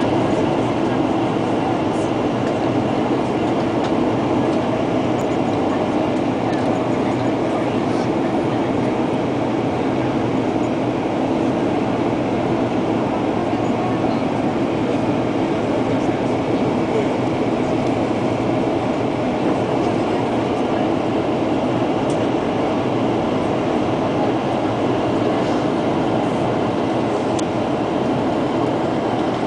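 Steady drone of jet engines and rushing air inside the passenger cabin of a WestJet Boeing 737 airliner descending on approach to landing.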